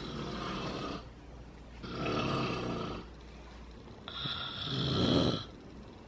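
A woman snoring in her sleep: three snores, each a second or so long and about two seconds apart, the last the loudest.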